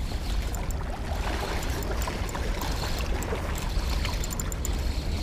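Small waves lapping and trickling among shoreline rocks, with scattered small splashes over a steady low rumble of wind on the microphone.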